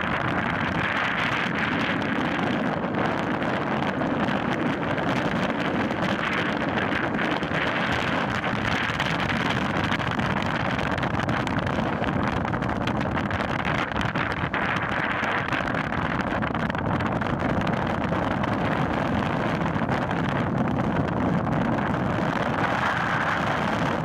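Strong wind blowing on the camera microphone, a steady rushing noise with no let-up.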